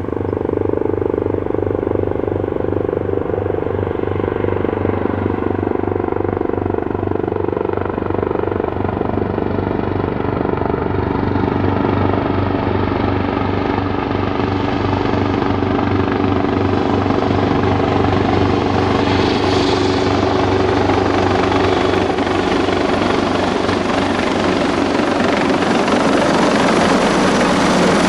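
Airbus Helicopters EC225LP Super Puma twin-turbine helicopter running, its rotor beating steadily with turbine noise over it, growing gradually louder.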